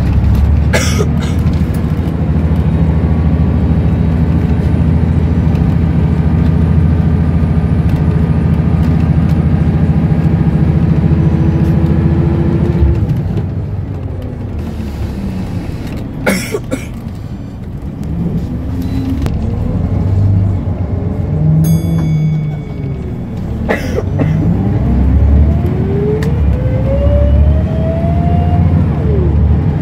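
Scania L94UB bus heard from inside the saloon: the diesel engine drones steadily under load, eases off about twelve seconds in, then pulls away again with rising whines as the ZF automatic gearbox climbs through the gears. A few sharp knocks are heard along the way.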